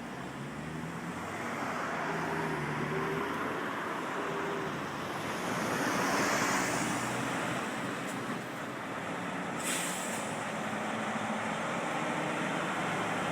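Heavy-haul truck carrying a Shinkansen car on a trailer, driving slowly past. Its engine drone and tyre noise swell to their loudest about six seconds in, and a short hiss of air comes near ten seconds.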